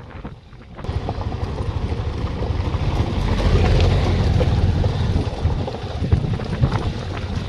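Honda motorcycle riding along a rough, stony dirt road: the engine runs under the rumble of the wheels over loose stones, with wind buffeting the microphone. The noise jumps louder about a second in.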